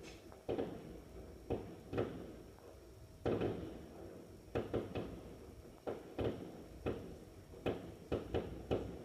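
Fireworks going off: a run of irregular sharp bangs, some close together and some spaced a second or more apart, each trailing off briefly.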